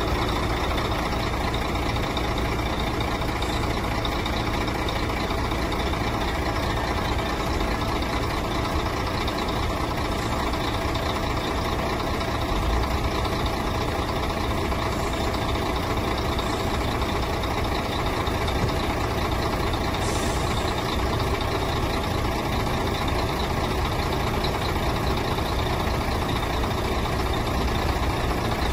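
The diesel engine of a HOWO 6x4 dump truck running steadily during a tipper-body lifting test, with no change in speed.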